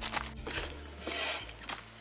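Footsteps in sandals crunching on loose gravel, a few uneven steps.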